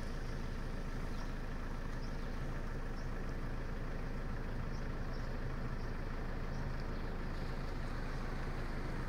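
A vehicle engine idling, a steady low hum that neither rises nor falls, with a few faint light ticks above it.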